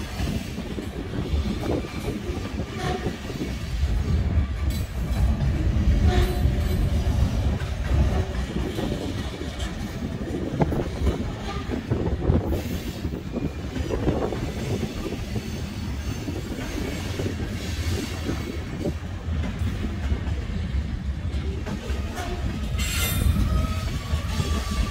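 Freight cars of a Norfolk Southern train rolling past, loaded lumber flatcars and boxcars, with a steady low rumble and clicking of wheels over the rail joints. Thin, high wheel squeals come and go.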